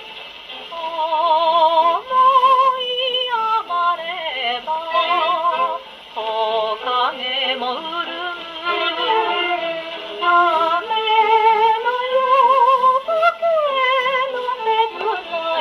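A woman singing a slow vocal melody with wide, wavering vibrato, played from a 1946 78 rpm shellac record on a Columbia G-241 portable wind-up gramophone. The sound is thin, with almost no deep bass or high treble.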